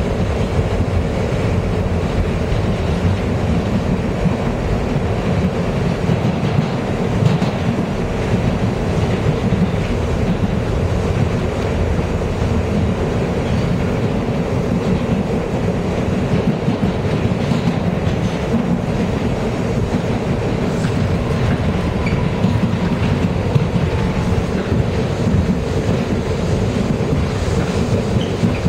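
New York City subway train running at speed, heard from inside the car at the front window: a steady rumble of wheels on rail with occasional clicks over the track.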